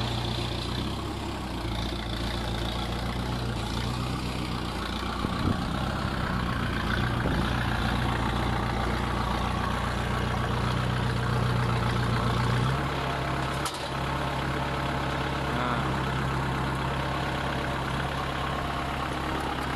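Kubota tractor's diesel engine running steadily while it powers a hydraulic crane arm lifting and emptying a loaded net bag. The engine note shifts about two-thirds of the way through, and a single sharp click follows shortly after.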